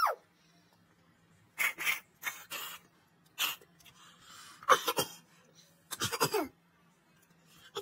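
A person coughing and sneezing in a string of short, sharp bursts, about five in all, with quiet gaps between them.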